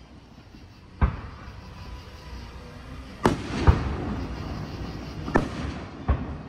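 Aerial fireworks shells bursting: five sharp booms at uneven intervals, one about a second in, a close pair a little past three seconds (the second the loudest, with an echoing tail), then one near five and a half seconds and another just after six.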